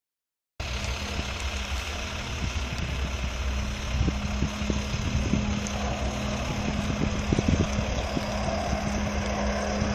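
Steady engine drone with a constant low hum, starting about half a second in, over low, uneven buffeting on the microphone.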